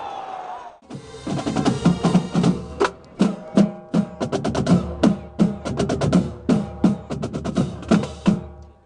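Marching band playing: a fast drum cadence of snare and bass drum strikes with cymbals, over held brass notes. It starts about a second in and cuts off just before the end.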